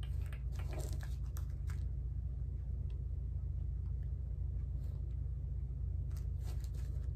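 Small plastic zip-lock bags of diamond painting drills crinkling and rustling as they are handled, in a cluster over the first couple of seconds and again near the end, over a steady low hum.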